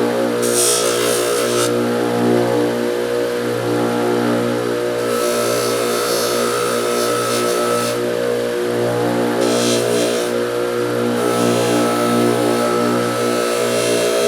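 Electric grinding motor running steadily, with a steel workpiece pressed against the spinning abrasive wheel several times, giving a hissing grind each time it touches.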